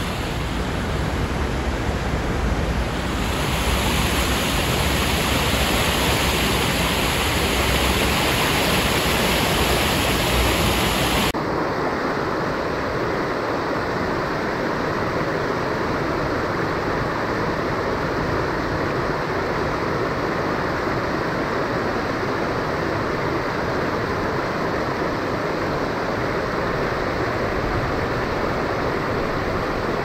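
Steady rush of flowing creek water, with no distinct events. It is louder and hissier for the first eleven seconds or so, then changes suddenly to a slightly softer, duller rush.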